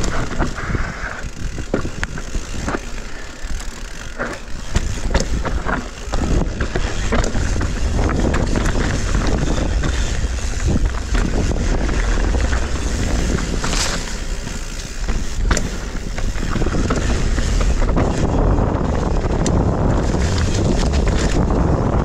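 Mountain bike riding down a rough, rocky trail: rumbling tyre and trail noise with the bike rattling and many sharp knocks from impacts, a strong one about fourteen seconds in. Wind buffets the microphone.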